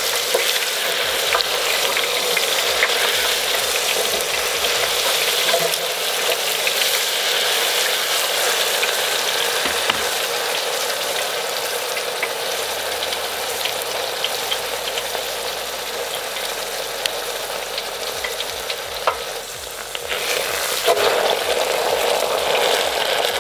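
Hot oil in an electric deep fryer sizzling and crackling steadily around pieces of paper, one of them a wet paper towel, with scattered small pops. It eases briefly near the end, then swells again.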